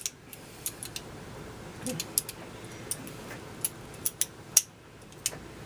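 Irregular sharp clicks and small metallic knocks of steel Mosin-Nagant rifle bolt parts being handled and worked apart by hand, about a dozen scattered through, the loudest at the very start.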